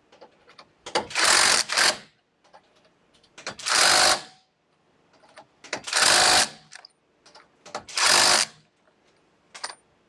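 Impact wrench spinning lug nuts in four short rattling bursts about two seconds apart, with small clicks of the socket going onto each nut in between.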